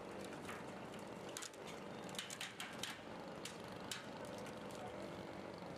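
Crawler bulldozer's diesel engine running steadily while it crawls over a ramp. Its steel tracks give a run of sharp clanks and squeaks between about one and four seconds in.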